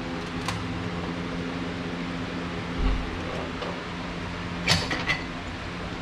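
Steady mechanical hum in a small shop, with a dull thump about three seconds in and two sharp knocks near the end as a steel bar is handled and positioned for a bend.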